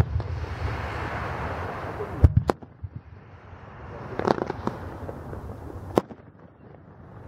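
Aerial fireworks going off: a dense fizzing noise for the first two seconds, two sharp bangs close together a little after two seconds in, a cluster of quick pops around four seconds, and a single sharp bang about six seconds in.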